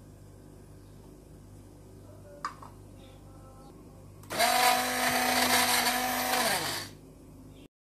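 Electric hand (immersion) blender running in a glass dish of a sour-milk mixture: a steady motor whine for about two and a half seconds, then winding down with falling pitch. A single light click comes a couple of seconds before it starts.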